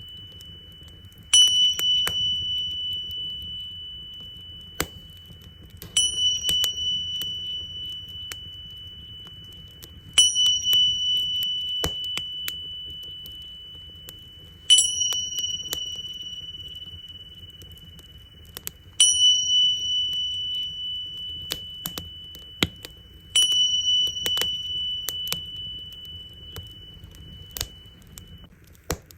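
Tingsha cymbals struck together six times, about every four and a half seconds; each strike rings out in a high, slowly fading tone. Under them a wood fire crackles.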